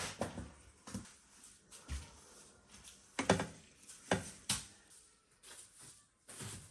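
A few scattered light knocks and clicks, like objects being handled or set down, in a small room.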